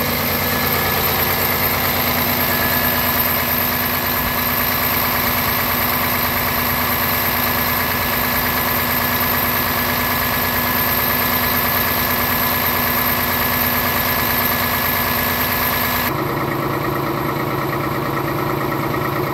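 Scania R 450's 13-litre DC13 inline-six diesel idling steadily, heard close in the open engine bay under the tilted cab. Near the end the sound turns duller, with less of the high end.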